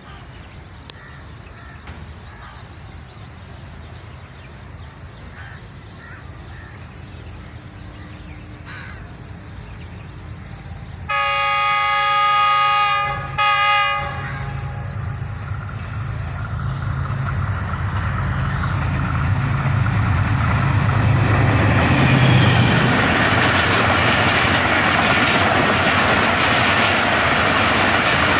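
Pakistan Railways GEU-40 diesel-electric locomotive sounds its air horn, one long blast about eleven seconds in followed by a short one. Then the engine's low drone and the rush of wheels on rail grow steadily louder as the express and its passenger coaches pass at speed.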